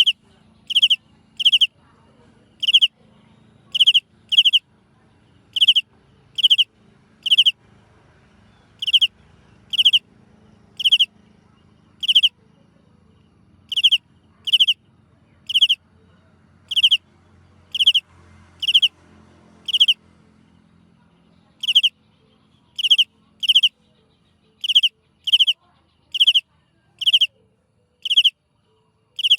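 A small creature's loud, shrill call: short high chirps repeated one to two times a second, often in close pairs.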